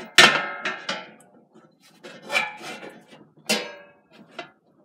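A thin divider plate knocking and scraping against the walls of a Power XL air fryer basket as it is fitted in. Each knock rings briefly, the loudest one just after the start, with more at about two and three and a half seconds in.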